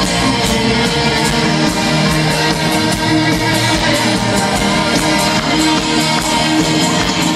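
A live rock band playing loud through a stadium PA, with guitars prominent, heard from within the audience.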